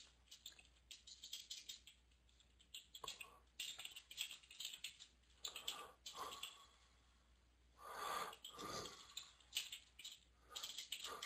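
Faint computer keyboard typing: irregular runs of key taps with short pauses between them.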